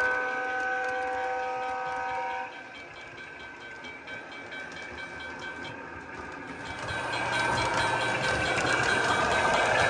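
Lionel Doodlebug model motorcar sounding its horn, which cuts off about two and a half seconds in. Then the quieter rumble of the model train running on the track with light, even clicking, growing louder again near the end.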